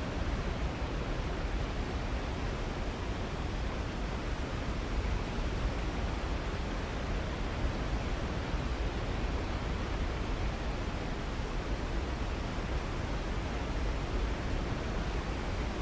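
Waterfall: falling water rushing steadily, an even deep noise with no breaks or changes.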